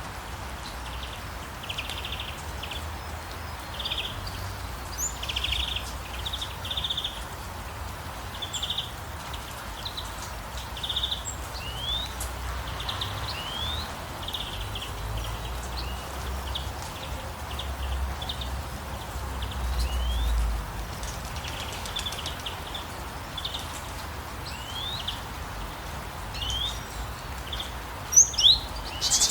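Songbirds chirping repeatedly, with short notes and quick rising calls, over a steady hiss of rain or running water; a few louder chirps come near the end.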